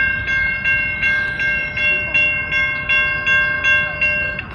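Railroad crossing warning bell ringing in a fast, even rhythm of about three strokes a second while the crossing gates begin to rise. It cuts off suddenly near the end, the sign that the crossing has cleared.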